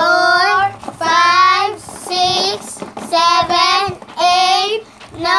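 A child singing a string of high, drawn-out notes with a wavering pitch, about seven short held notes in a row.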